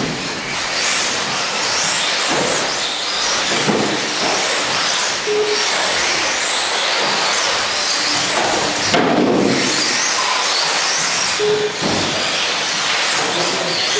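Radio-controlled race cars running laps on an indoor carpet track: high-pitched motor whine rising and falling as the cars accelerate and brake. Two short beeps sound a few seconds apart.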